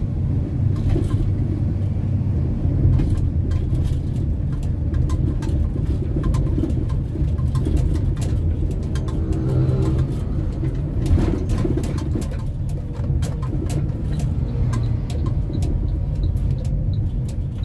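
Engine and road noise inside the cabin of a moving vehicle: a steady low rumble with scattered light ticks and rattles.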